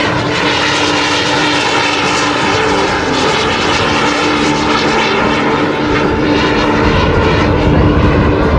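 The Super Salto jet sailplane's small turbojet engines running as it flies past: a steady whine over a rushing noise whose bands sweep slowly in pitch. A low rumble builds about six seconds in.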